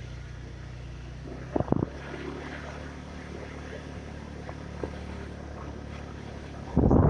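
Vehicle engine running at a steady low hum, heard from the moving vehicle, with a couple of short knocks about a second and a half in. Near the end, loud wind buffeting hits the microphone suddenly.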